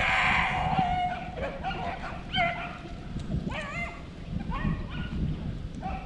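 A pack of beagles baying as they run a cottontail rabbit's track: repeated rising-and-falling bawls and yelps from several hounds, overlapping, over a low rumble of wind on the microphone.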